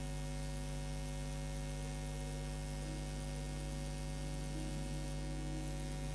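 Steady electrical mains hum, a stack of unchanging tones at an even level.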